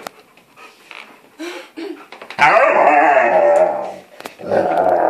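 Alaskan malamute vocalizing in play: after a few soft clicks, two long wavering woo-woo calls, the first about two and a half seconds in, the second starting near the end.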